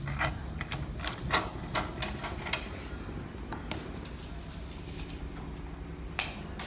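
A steel tape measure being handled, its blade giving a run of sharp clicks and rattles over the first couple of seconds, then one more click near the end.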